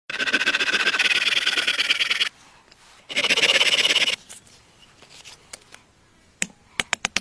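A folding hand saw cutting through a small log in rapid strokes, in two spells of about two seconds and one second. Near the end a hatchet strikes the wood in a quick run of sharp knocks, splitting it.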